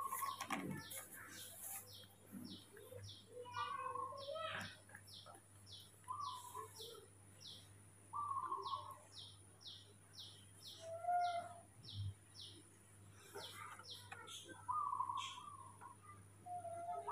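Birds chirping: a rapid series of short, sharp, high chirps at about two to three a second, with a brief pause partway through. Shorter, lower calls come in every couple of seconds.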